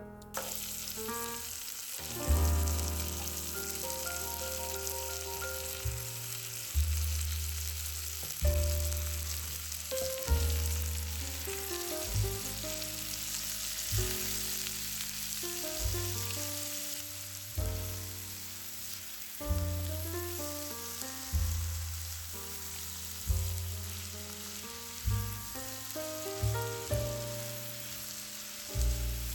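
Food frying in a skillet, an even sizzle that starts suddenly just after the beginning, under background music of piano and bass notes.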